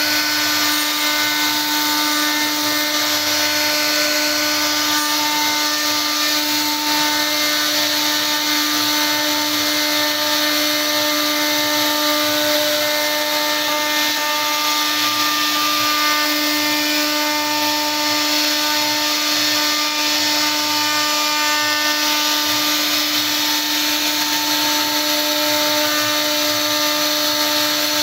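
CNC router spindle running at a steady pitch as its carving bit cuts relief patterns into a wooden panel, with a steady hiss of the bit cutting wood.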